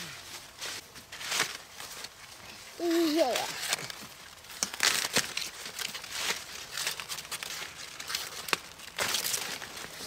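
Leaves crinkling and rustling as they are handled, in short irregular crackles. A brief voice sounds once about three seconds in.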